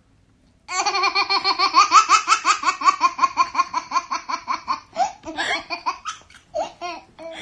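A toddler's belly laugh: a long, rapid run of high-pitched laughs, several a second, starting about a second in and breaking up into scattered giggles after about five seconds.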